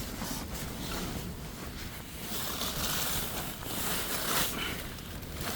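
Strong wind gusting against a Hilleberg Jannu tent, the fabric rustling and buffeting, swelling and easing with the gusts.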